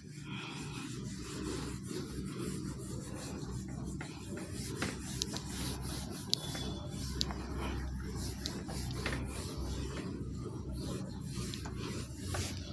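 Cloth wiping marker off a whiteboard: a steady rubbing of fabric against the board's surface.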